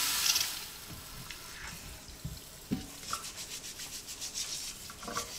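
Tap water splashing into a stainless-steel sink over russet potatoes, loudest as it starts. From about three seconds in, a dish brush scrubs a potato's skin in quick back-and-forth strokes under the running water, with one dull knock near the middle.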